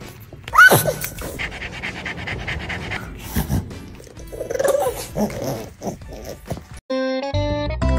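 A pug making a sharp high yelp about half a second in, then noisy breathing and a short low grunt about halfway through while being played with. Music with steady notes begins near the end.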